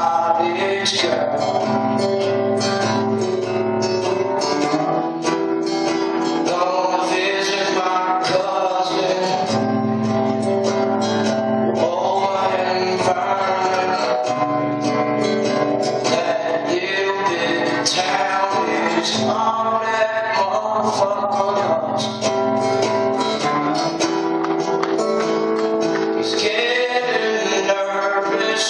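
Live acoustic band music: acoustic guitar playing steadily under a melodic line, with no sung words.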